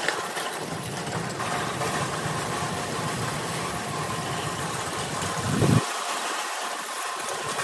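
A small ride-on vehicle's motor running steadily with a faint whine, along with the rumble of wheels rolling over pavement. A single thump a little before six seconds in, as the wheels jolt over the cracked road.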